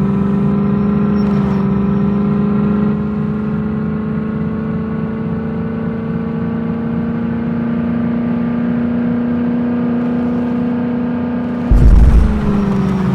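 Landi jeep's engine running steadily, its pitch slowly rising. Near the end comes a single loud low thump, the loudest sound in the stretch, and then the engine note drops.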